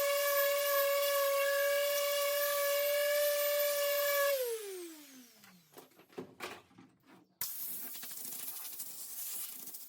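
A small high-speed electric motor whining at one steady pitch, then switched off about four seconds in and spinning down with a falling whine. A few knocks and a steady hiss follow.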